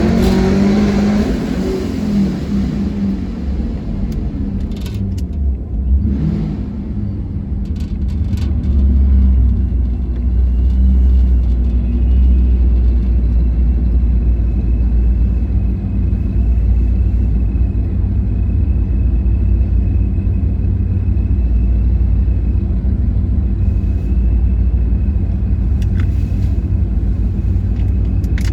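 Modified Pontiac G8's 6.0 L V8 engine and exhaust revving up and back down briefly at the start, then settling into a steady deep rumble at low revs.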